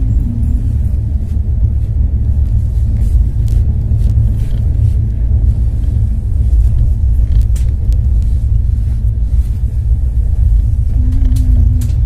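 Steady low rumble of a moving vehicle heard from on board, with a few faint clicks.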